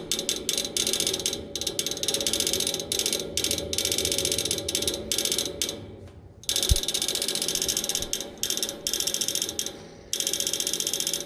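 Air-conditioner outdoor unit clicking and ratcheting rapidly from inside its cabinet while the condenser fan stands still, as if trying to crank on something. The clicking stops briefly twice and starts again, with a single sharp thump just after the first stop. It is a fault that a new fan motor has not cured.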